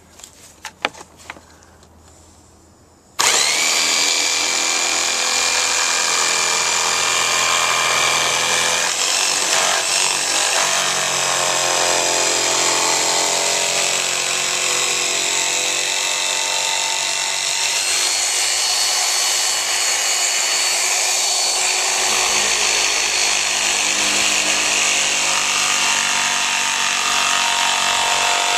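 A few light handling knocks, then about three seconds in a corded electric jigsaw starts and runs steadily, its blade cutting through a wooden board with a steady high whine over the cutting noise.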